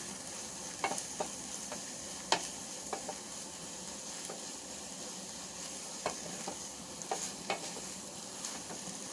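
Omena (small dried fish) deep frying in hot oil with a steady sizzle, while a utensil stirs them in the pan, tapping it sharply now and then.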